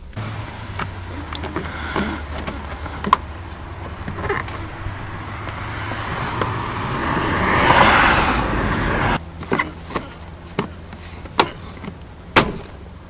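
A car running, its noise swelling for several seconds and then cutting off sharply about nine seconds in. A few short clicks or knocks are heard along the way.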